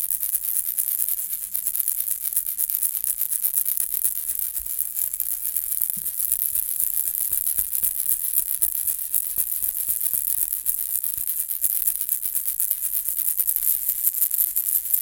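Baby rattle ball shaken without pause: a steady, dense, high-pitched rattle of the small pellets inside.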